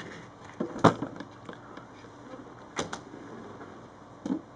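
Three sharp clicks and knocks, the loudest about a second in, with a few lighter clicks between: a plastic precision screwdriver kit case being handled and set down on the table.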